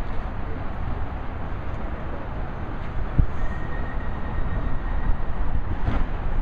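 Docklands Light Railway train approaching along the track, a steady low rumble. A thin, steady high whistle holds for about a second and a half midway.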